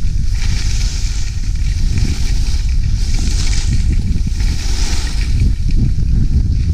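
Skis hissing over packed snow in a series of turns, a swell of hiss about every second and a half, over a heavy rumble of wind buffeting the handheld action camera's microphone at skiing speed.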